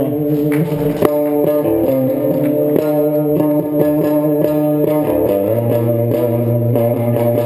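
A rock band playing an instrumental passage: guitar chords over a bass line, with no singing. A low bass note comes in about five seconds in.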